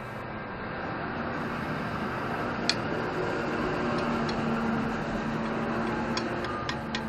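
A steady low hum runs throughout. There is a sharp metallic clink about two and a half seconds in and a few lighter clicks near the end, as a steel pipe and its bracket are handled.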